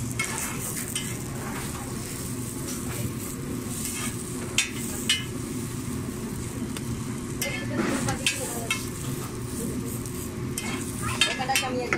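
Bun kababs frying on a flat griddle with a steady sizzle. A metal spatula scrapes and clicks against the griddle a few times as the buns are pressed and turned.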